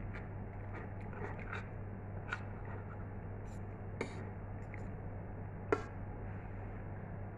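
Metal spoon and fork clinking and scraping against bowls while eating: soft taps about a second in, then three sharper clinks roughly a second and a half apart, the last the loudest. A steady low hum lies underneath.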